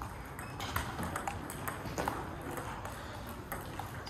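Table tennis rally: a celluloid-type ping-pong ball clicking sharply off bats and table, the hits coming irregularly, several close together in places.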